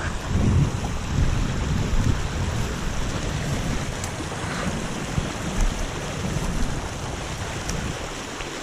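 Steady rush of running water in a small trout stream, with uneven low rumbling on the microphone.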